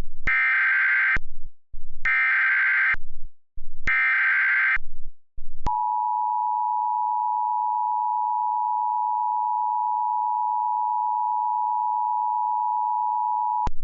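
Emergency Alert System SAME header: three buzzy bursts of digital data tones, each about a second long with about a second between them. About five and a half seconds in, the steady two-tone EAS attention signal starts and holds for about eight seconds.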